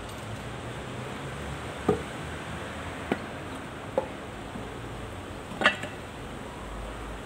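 Four short, sharp knocks and clicks as tractor brake parts are handled, spaced about a second apart, the loudest a little before the end, over a steady low background noise.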